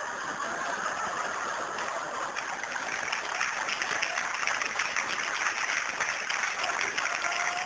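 Theatre audience applauding: a steady, dense crowd of hand claps.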